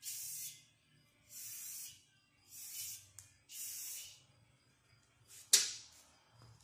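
Aerosol spray-paint can spraying in four short bursts of hiss, each about half a second long. About five and a half seconds in there is a single sharp clack, the loudest sound.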